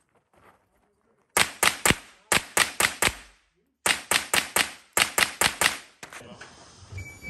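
Rapid semi-automatic fire from a .22 rimfire mini rifle: about eighteen sharp shots in fast strings of four or five, beginning about a second and a half in, with a brief pause in the middle and the firing stopping about six seconds in.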